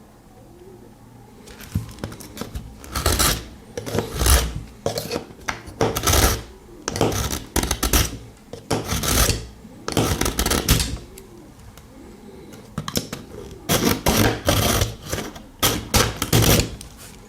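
A pocket knife blade drawn again and again through a cheap handheld carbide-and-ceramic disc knife sharpener: rasping strokes about one a second, in two runs with a short pause between them.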